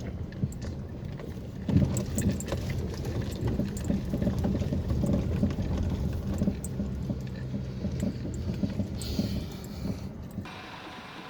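Car driving on a broken, potholed road, heard from inside: a steady engine and tyre rumble with frequent knocks and rattles as the car jolts over the holes. Near the end the rumble stops abruptly and a quieter background takes over.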